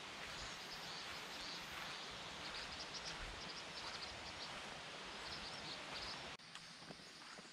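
Forest ambience: a steady outdoor hiss with short, high chirps scattered through it. About six seconds in it cuts off sharply to a quieter background, as at an edit.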